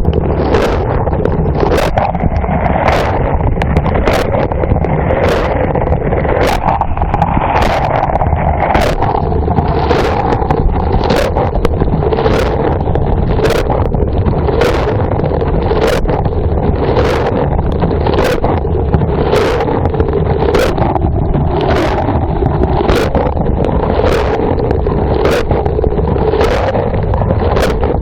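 Dishwasher running, heard from inside the wash tub: a continuous spray of water with a low rumble, and the rotating spray arm's jets sweeping past in regular loud swishes about once a second.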